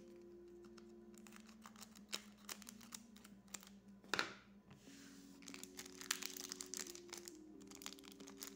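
Crinkling of a foil Pokémon card booster pack wrapper as it is gripped and worked to be torn open, with many small crackles and one louder rustle about four seconds in. Soft background music underneath.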